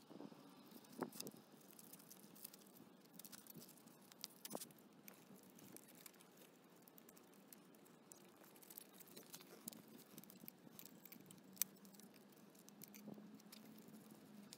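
Faint handling noise of hands working nylon straps and plastic buckles on a motorcycle frame: soft rustling with a few scattered sharp clicks, the sharpest one late on.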